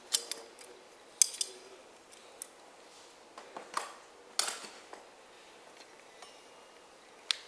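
Scattered sharp clicks and taps of a metal palette knife and a small plastic jar being handled and set down, about eight knocks in all, the loudest a little over a second in.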